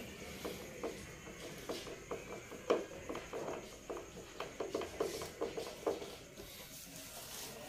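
Hand screwdriver turning the mounting screws around a speaker driver's rim into the cabinet: a run of small, irregular clicks and creaks, with one louder click a little before the middle.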